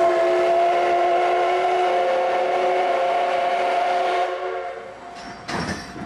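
Steam whistle of a Type C58 steam locomotive, heard from a passenger car behind it: one steady, chord-like blast of about four seconds that then fades out. About a second and a half later comes a short, loud burst of noise.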